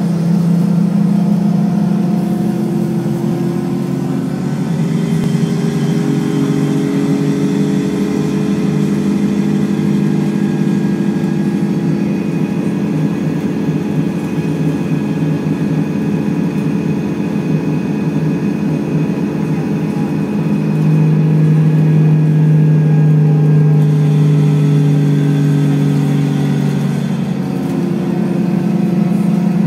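Engine and drivetrain of a CNG-powered Scania L94UB city bus, heard from inside the passenger cabin as it drives. The engine drones steadily, its pitch shifting a few times, and it runs louder and steadier for several seconds past the middle.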